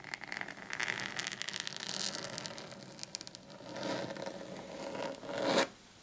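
Fingernails scratching a flat mat-like surface: a fast run of short scratching strokes, then a slower scrape that swells and stops suddenly near the end.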